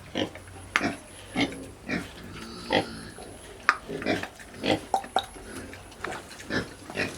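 Pigs grunting and giving short squeals: a dozen or so brief calls at irregular intervals.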